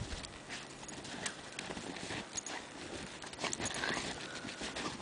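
A puppy scuffling and rolling in snow: irregular short crunches and rustles, with no steady rhythm.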